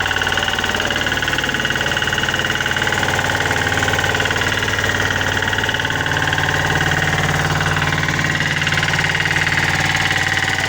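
An engine running steadily with an even, rapid pulse and a low hum that holds its pitch.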